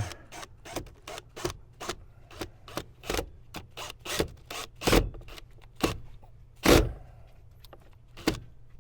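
A string of irregular sharp clicks and knocks from driving screws into a wooden cabinet frame, some knocks louder than others, with the screws giving trouble.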